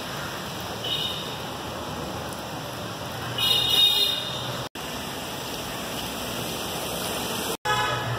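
Steady city street traffic noise. A short high-pitched horn toot comes about a second in, and a louder one lasting most of a second comes between three and four seconds in. The sound drops out for an instant twice.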